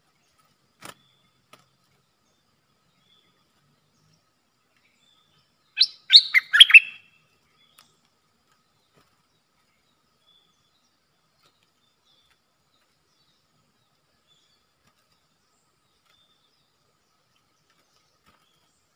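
A bulbul (merbah lekir) gives one quick burst of about five sharp chirping notes, lasting about a second, about six seconds in.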